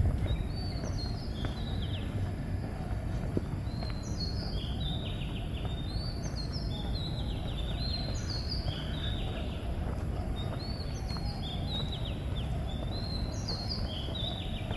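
A songbird repeating a short phrase of high notes stepping downward, every two to three seconds, over a steady low traffic rumble.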